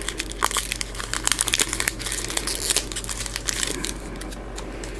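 Foil trading-card booster pack wrapper crinkling as it is torn open: a dense run of crackles that thins out after about three and a half seconds.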